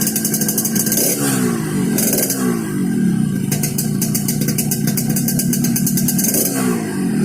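Yamaha RX-King 135 cc single-cylinder two-stroke engine idling and blipped a few times, the revs falling back to idle after each blip, with a fast high crackle that comes and goes. The exhaust is tuned for the deep 'ngorok' (snoring) note.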